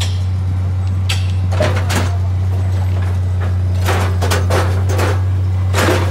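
A track-laying machine runs with a steady low hum, and its metal parts against the rail give short clanks and rattles: one about a second in, a cluster around two seconds, and more between four and six seconds.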